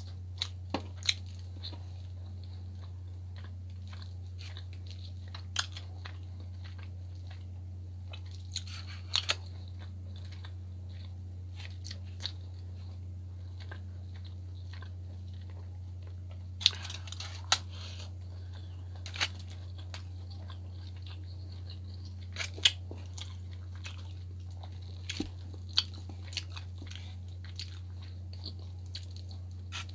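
Close-miked eating sounds: chewing and biting on salmon and Brussels sprouts, broken by scattered sharp clicks and short bursts, over a steady low hum.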